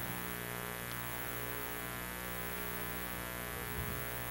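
Steady electrical mains hum and buzz, with many evenly spaced overtones and no change in level.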